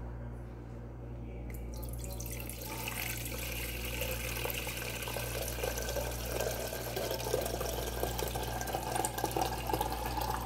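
Water poured in a steady stream into an empty metal teapot, starting about two seconds in.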